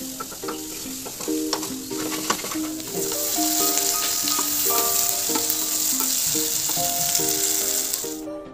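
Chopped vegetables sizzling as they fry in hot oil in a pot, stirred with a spatula that clicks against the metal. The sizzle grows louder about three seconds in and cuts off suddenly near the end, over light plucked background music.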